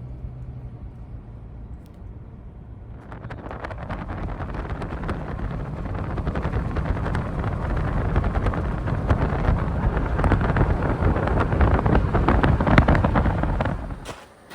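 Wind buffeting a phone's microphone outdoors: a loud, low rumble with crackling gusts that builds up over several seconds, then cuts off abruptly near the end.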